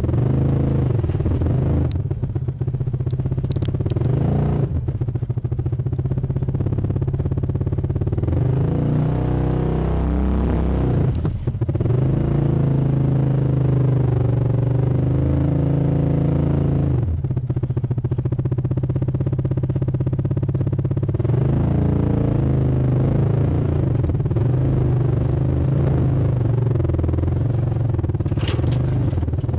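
Yamaha Rhino side-by-side's engine running at low trail speed, the revs rising and falling as it crawls over rough ground, with the machine rattling. A few sharp knocks or scrapes come through, in a cluster a couple of seconds in, once near the middle and once near the end.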